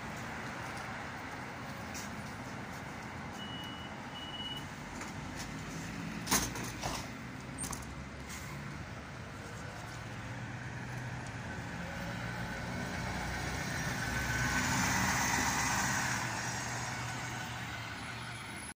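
Solaris Urbino 12 IV city bus idling at a stop, with two short high beeps about three to four seconds in and a sharp clunk about six seconds in. Near the end the engine sound swells with a hiss for a few seconds, then eases.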